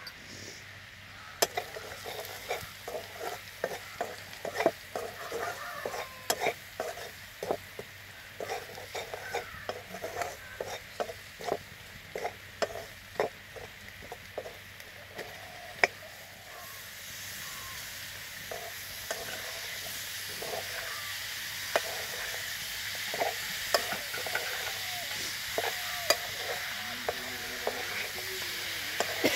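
Metal spatula scraping and knocking against a steel kadai as masala is stirred in hot oil, over a steady sizzle. About halfway through, the sizzle grows louder and stays that way.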